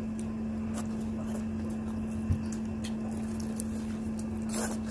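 Chewing and small eating noises: light wet clicks and ticks of mouths and chopsticks on food, with a single knock about two seconds in, over a steady low hum.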